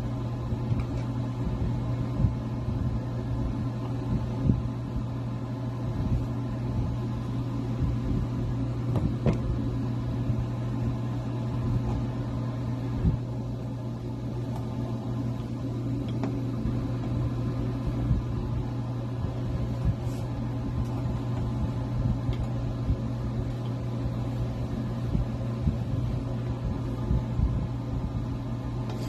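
Rotary drum cheese grater shredding a block of cheddar, with irregular scraping and small clicks and knocks, over a steady low hum throughout.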